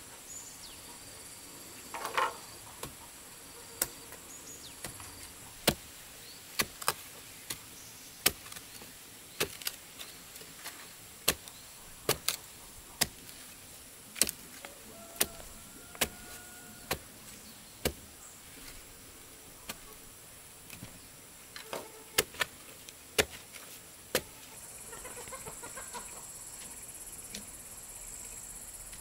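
Long-handled digging bar jabbed repeatedly into hard, dry soil to dig a post hole: sharp strikes about once a second that stop near the end. A steady high insect drone runs underneath.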